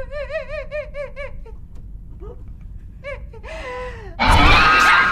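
A woman crying in rapid, shaky whimpering sobs, then a falling wail. About four seconds in comes a sudden loud crash with screaming.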